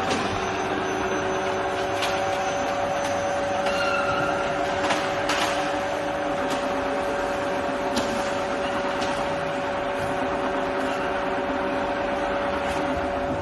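Niigata 2UMD universal milling machine running, a steady mechanical hum and whine from its motor and gearing, with a few faint clicks.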